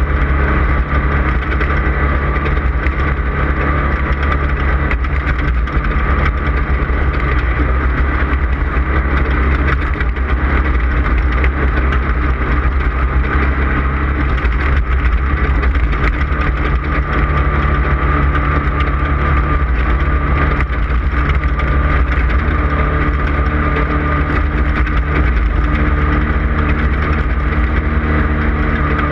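Off-road race vehicle's engine running hard at a steady, nearly unchanging pitch, over a constant loud rush of noise.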